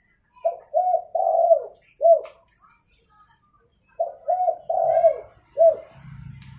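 Caged spotted dove cooing, kept as a lure bird. It gives two matching phrases about three and a half seconds apart, each made of two short coos, a longer drawn-out coo and a short closing coo.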